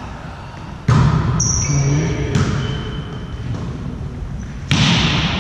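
Volleyball being struck during a rally: three sharp smacks, the first about a second in, then more roughly every one and a half to two seconds, echoing around a large gym hall.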